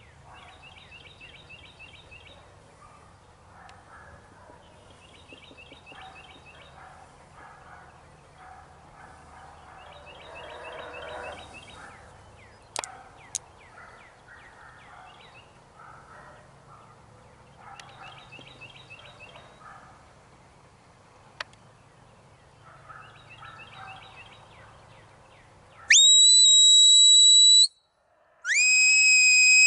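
A songbird repeats a short trilled phrase every few seconds over faint field ambience. Near the end come two loud whistle blasts, each sweeping quickly up to a held high note, the second lower than the first: a handler's whistle commands to a herding dog working cattle.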